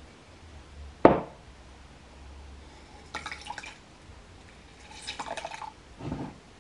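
Lemon juice dripping and trickling into a glass as a lemon half is squeezed by hand, in two short spells of quick drips, about three and five seconds in. A single sharp knock about a second in is the loudest sound, and a duller thump comes near the end.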